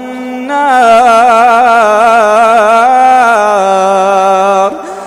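A man reciting the Quran in a slow, melodic chant, drawing one long vowel out in a wavering, ornamented line for about four seconds, stepping down in pitch partway through, before breaking off near the end.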